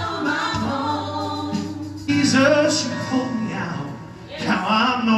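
Live gospel worship band: Yamaha and Casio keyboards playing held chords under several voices singing.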